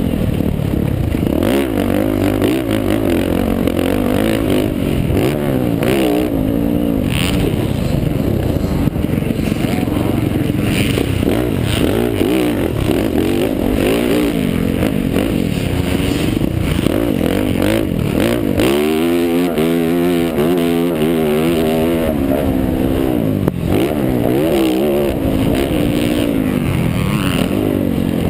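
Yamaha YZ450F's single-cylinder four-stroke engine under racing throttle, revving up and down as the rider accelerates and backs off through the turns and straights, with a long climb in pitch about two-thirds of the way through.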